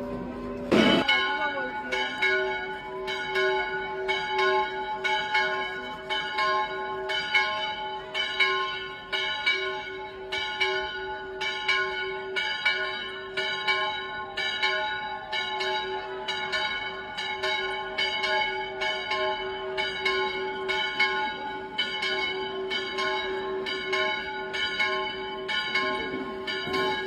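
Church bells ringing in a fast, steady peal, struck about twice a second from about a second in, with a low bell's hum holding under the strikes.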